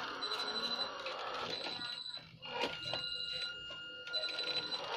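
A high-pitched electronic beep repeating about once a second, each beep lasting a little under a second. A second, lower steady tone joins about halfway through.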